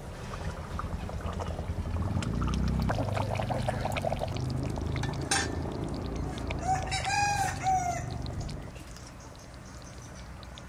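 A rooster crows once, about seven seconds in, over hens clucking. There is a low rumble through the middle and a single sharp knock a little before the crow.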